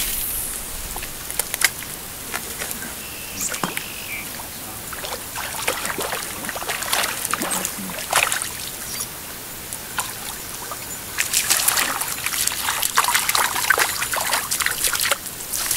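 Rain runoff water trickling and splashing as it flows into a lake, with scattered short splashes and clicks that grow busier about eleven seconds in.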